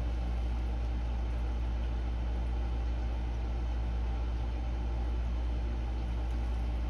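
Steady low hum, an unchanging deep drone with no breaks.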